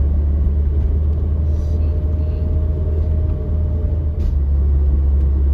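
Steady low engine and road rumble heard inside a moving camper van's cabin.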